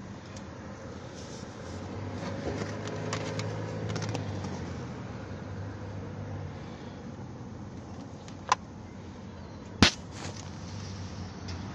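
BMW 320d's four-cylinder turbodiesel idling, heard inside the cabin as a low steady hum that grows a little louder for a few seconds about two seconds in. Two sharp clicks come near the end.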